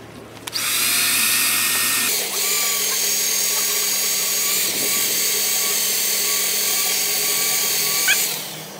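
Electric drill boring into the steel door of a burglary-resistant safe near the bolt, running steadily with a high whine. It starts about half a second in and winds down near the end.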